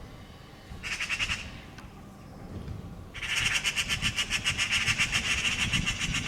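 Eurasian magpies giving harsh rattling chatter: a short burst about a second in, then a longer run of rapid rattles from about three seconds in. This is the alarm chatter magpies make while mobbing a cat that threatens their fledgling.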